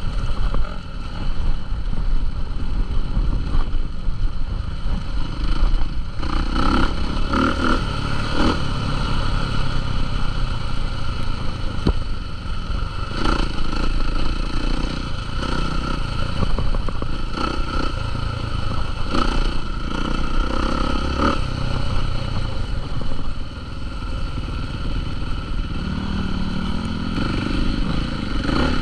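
Motocross dirt bikes' engines running continuously, with a few scattered clattering knocks.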